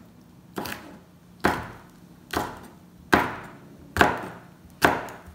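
Chef's knife slicing a poblano chile into thin strips on a plastic cutting board. Six separate strokes, each ending in a knock of the blade on the board, a little under one a second.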